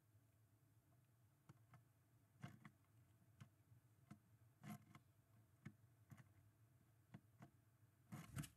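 A great tit at the wooden entrance hole of a nest box, making faint, irregular taps and scratches on the wood, with a louder quick cluster of them near the end.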